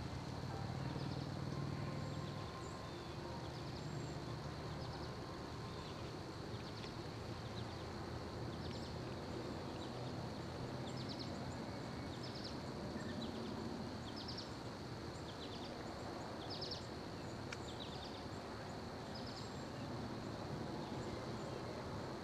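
Field ambience: a steady high-pitched insect drone with short high chirps repeating every second or two, over a faint low background rumble.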